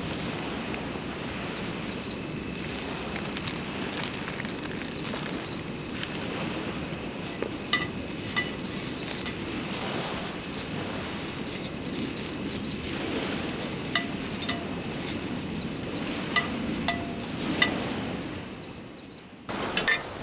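Sausages sizzling in a frying pan on a camp stove, with the tongs clicking against the pan several times as they are turned.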